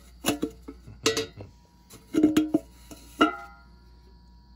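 Empty metal coffee can clanking and ringing as it is handled and knocked about on a concrete floor: several sharp knocks, the last one about three seconds in ringing out briefly.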